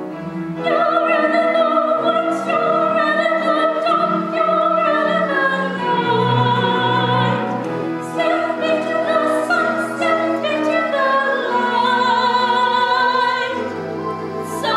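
A woman singing soprano in an operatic style with wide vibrato, over an instrumental accompaniment holding sustained low notes. The singing breaks briefly between phrases.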